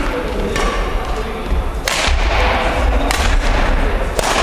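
Badminton rackets striking a shuttlecock in a rally: three sharp cracks, a little over a second apart, each ringing on in a large gymnasium.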